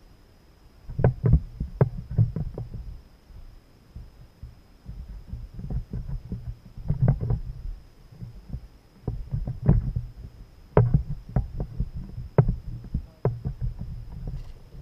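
Irregular knocks and low thumps on a plastic kayak, with sharp clicks mixed in, while a small caught fish is handled in the boat. The knocks come in clusters with short quiet gaps between them.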